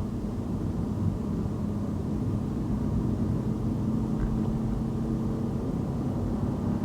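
Car driving along a city road: a steady low rumble of engine and road noise with no distinct events.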